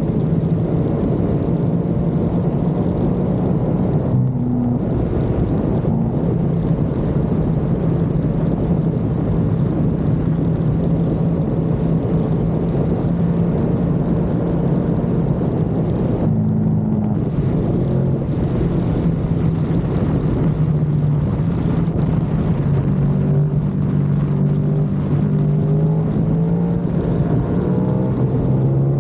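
KTM 1290 Super Duke R's V-twin engine running hard at highway speed, with wind rushing past. The engine note breaks off briefly twice, about four and sixteen seconds in, and wanders up and down in pitch near the end.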